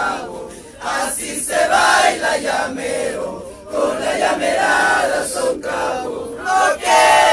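A crowd of mourners' voices chanting together in loud short phrases that break off and start again every second or so.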